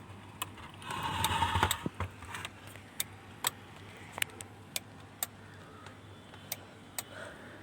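Denon AVR-2113 receiver's relay clicking repeatedly, sharp single clicks about every half second to a second, as the unit keeps cycling in and out of protection instead of turning on; the technician traces it to a 5 V supply that drops each time the relay clicks. A short rasping noise sounds about a second in.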